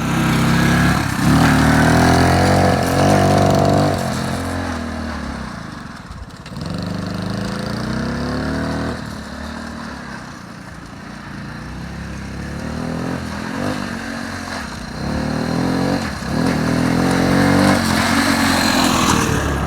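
Three-wheeler ATV engine running and revving as the machine is ridden, its pitch rising and falling. It is loudest about a second in and again near the end.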